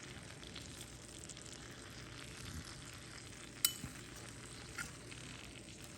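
Fat sizzling and crackling steadily in the pan under a freshly roasted Cornish game hen, faint, with one sharp click about three and a half seconds in and a smaller one near five seconds.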